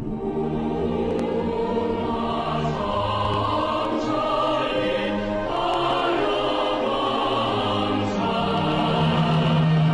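Outro music: an orchestral piece with choir voices holding long chords, changing chord about halfway through.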